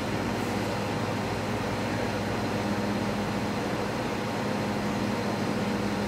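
Steady background hum and hiss of the room, with faint steady low tones and nothing else happening.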